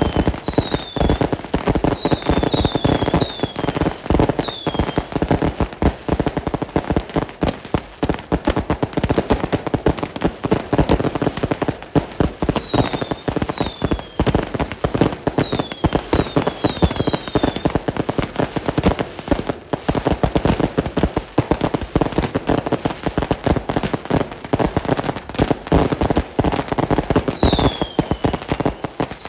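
A dense barrage of firecrackers crackling and popping without a break, with groups of short falling whistles from whistling fireworks near the start, in the middle and near the end.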